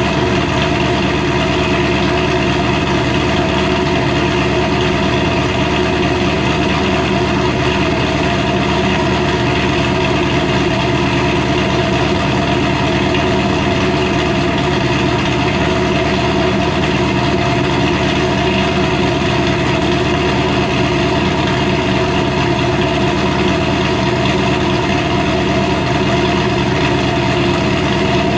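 Supercharged 427 cubic-inch V8 of a 2006 Pontiac GTO, fitted with a TVS2650 supercharger, idling steadily on cold-start warm-up, heard from behind at its dual exhaust tips.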